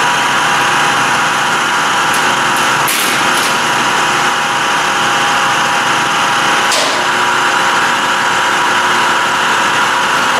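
Applebaum press brake running with a steady mechanical drone and hum while sheet metal is positioned in it, with two sharp clicks about three and seven seconds in.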